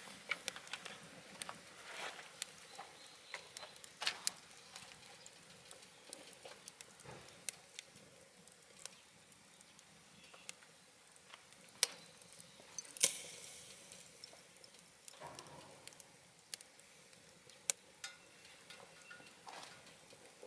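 Wood fire of scrap lumber crackling in a wood stove: irregular sharp pops and snaps over a faint hiss, the loudest two about twelve and thirteen seconds in.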